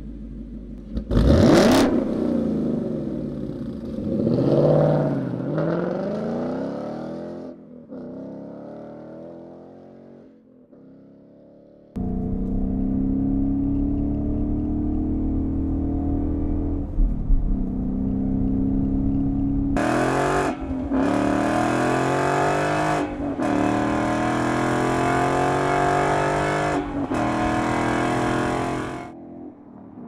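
Ford Mustang GT 5.0 L V8 through a Borla S-Type cat-back exhaust. A sharp loud rev comes about a second and a half in, then rising and falling revs. From about the middle on it accelerates hard, the pitch climbing and then dropping several times as it shifts up through the gears.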